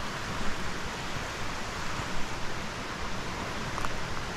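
Steady rush of flowing river water, an even noise that holds level throughout, with a small click near the end.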